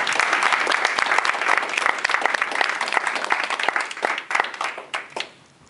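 Applause: many hands clapping densely, thinning out and dying away about five seconds in.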